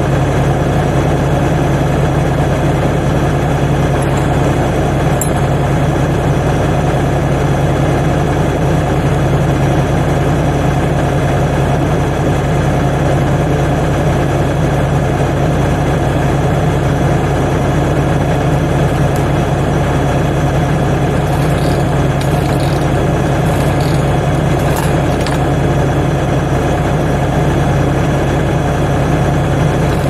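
An engine idling steadily, its pitch and level unchanging.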